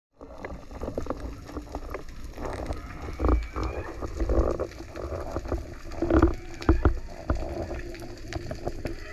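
Underwater sound picked up by a camera in its housing during a spearfishing dive: a low rumble of moving water, several heavy low thumps, and scattered sharp clicks.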